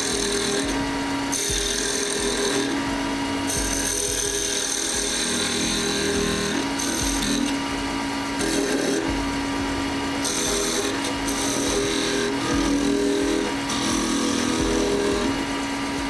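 Wood lathe running as a small gouge cuts the spinning wooden mushroom cap, the hiss of the cut coming and going in short spells as the tool works the shape.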